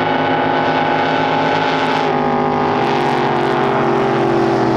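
Drag boat engine running at a steady idle, its pitch shifting slightly about two seconds in.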